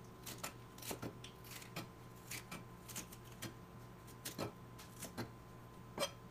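Chef's knife slicing a green pepper on a plastic cutting board: uneven taps of the blade hitting the board, about two a second, the loudest one near the end.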